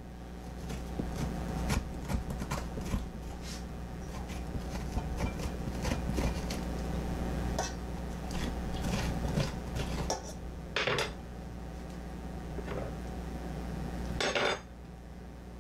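A metal utensil scraping and knocking repeatedly on halved pie pumpkins, scooping out the stringy pulp and seeds, with two longer scrapes late on. A low steady hum runs underneath.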